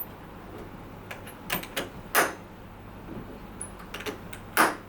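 Air scrubber's housing and filter cover being handled during a filter change: a few sharp clicks and knocks, the two loudest about two seconds in and near the end, over a steady low hum.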